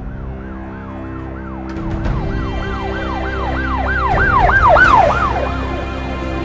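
Emergency siren wailing in a fast yelp, rising and falling about three times a second, growing louder to a peak about four to five seconds in, then fading away. A low steady drone runs underneath.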